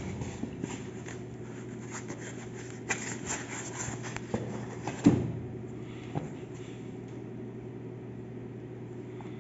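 Packing being handled: a foam packing insert and a black laptop cover sleeve rubbing and scraping, with one sharp knock about five seconds in, over a steady low hum.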